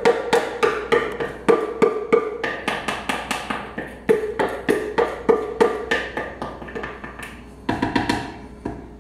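Wooden spoon knocking repeatedly against the inside of a plastic mixing bowl to knock batter out into a blender jar, about three sharp knocks a second, each with a short ringing tone. The knocks grow fainter toward the end.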